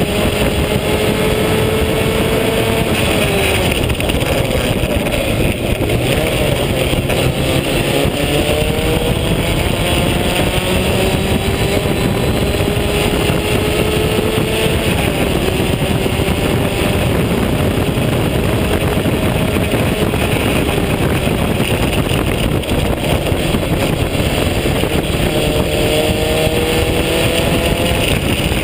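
Vintage open-wheel race car's engine at racing speed, heard from the cockpit. Its pitch climbs slowly through each gear and falls back several times at the gear changes, under heavy wind rush on the microphone.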